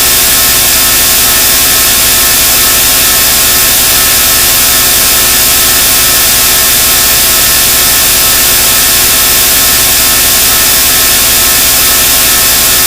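Loud, steady machine noise: a strong hiss with many fixed tones over a fast, even low flutter, unchanging throughout.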